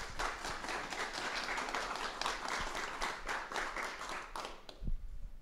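Audience applauding, fading out near the end, followed by a low thump.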